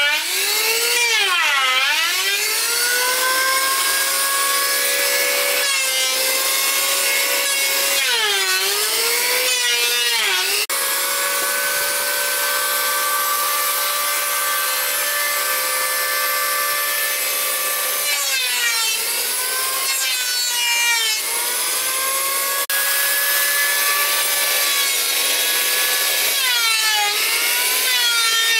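Handheld electric saw cutting wood: a steady motor whine whose pitch sags and recovers four times as the blade bites into the wood under load.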